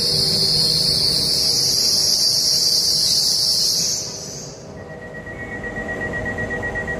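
Loud, high-pitched squeal from a Trenitalia Pop electric train moving out along the platform, its pitch wavering slowly up and down. About four seconds in it cuts off, giving way to the quieter rumble of another Pop train pulling in, with a steady high tone over it.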